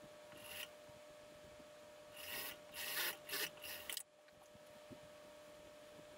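Dark suit fabric rubbing and rustling as hands slide and gather it on a sewing-machine table, in a short burst near the start and a longer run of rustles from about two seconds in to four seconds in, over a faint steady hum.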